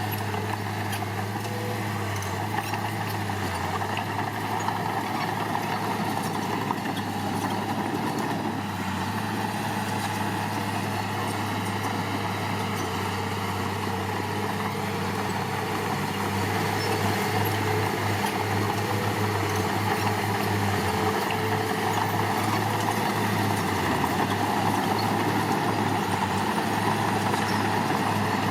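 Diesel engine of heavy earthmoving machinery running steadily with a low drone, getting a little louder about halfway through.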